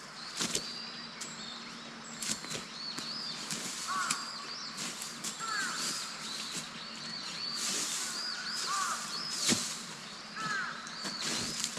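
Birds calling repeatedly with short, arched chirps, with scattered sharp clicks and snaps over the top, the loudest about nine and a half seconds in.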